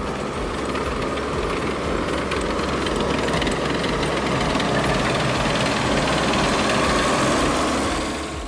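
Tractor diesel engine running with a fast, rattling knock, growing a little louder before fading out near the end.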